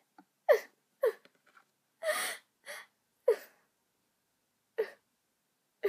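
A person sobbing: about five short cries that fall in pitch, with a long breathy gasp about two seconds in.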